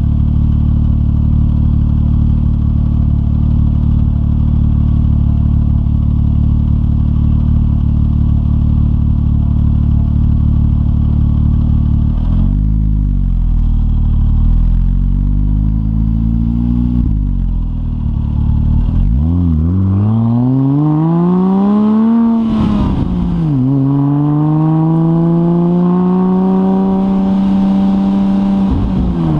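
Porsche 996 Turbo's twin-turbo flat-six running through a decatted Kline stainless 70mm X-pipe exhaust: it idles steadily for about twelve seconds, is revved up and down a couple of times, then climbs higher, dips briefly and holds high revs before dropping near the end.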